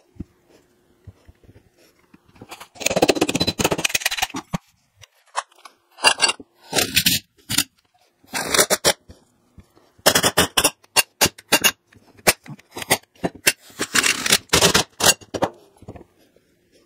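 Irregular bursts of metal scraping and clicking as universal-joint bearing cups are pressed into a drive-shaft yoke with a C-clamp press and worked into place by hand.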